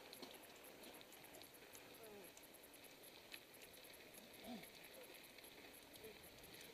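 Near silence: faint outdoor background with nothing standing out.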